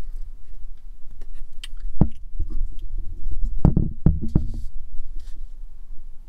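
Dull knocks and taps, one about two seconds in and a cluster of several between three and a half and four and a half seconds, over a steady low rumble. These are handling knocks around the windshield-mounted comma 2.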